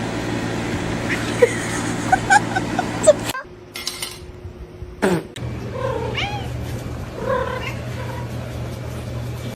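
Cat meowing: a run of short, chirpy calls in the first few seconds, then, after a break, several longer bending meows, over a steady low hum.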